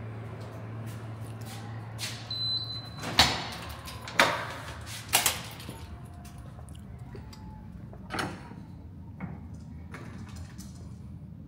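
A door being opened and walked through: sharp latch clicks and knocks, the loudest about three seconds in, followed by a few more knocks and a couple of fainter ones later. A brief high beep comes just before the loudest knock, and a low steady hum fills the first three seconds.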